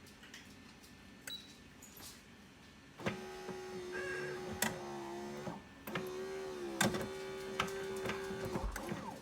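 Automatic espresso machine starting its motor about three seconds in: a steady mechanical hum with clicks and rattles, which dips briefly about halfway and then picks up again.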